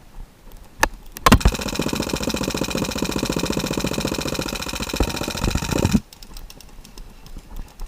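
HPA airsoft light machine gun firing one long full-auto burst, a rapid steady stream of shots. It starts about a second and a half in, lasts about four and a half seconds and cuts off abruptly.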